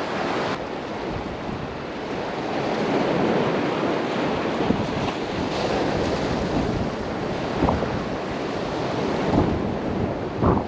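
Wind buffeting the microphone over the wash of sea surf on the shore, with a few brief knocks and a sharper thump near the end.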